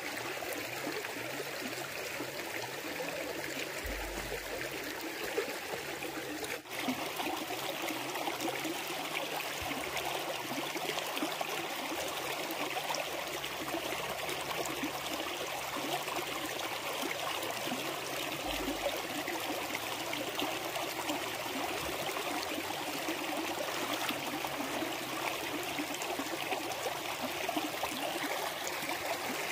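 Water running in a steady, continuous flow.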